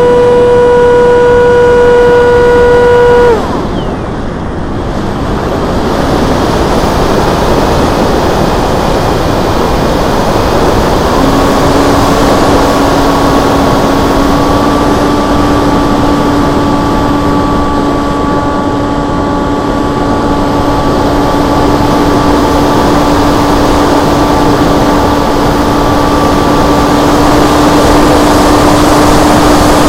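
Onboard sound of a Multiplex FunJet Ultra RC jet in flight: the electric motor and pusher propeller whine at a steady high pitch, cut off about three seconds in, leaving only the rush of airflow over the plane, then come back at a lower steady pitch about eleven seconds in.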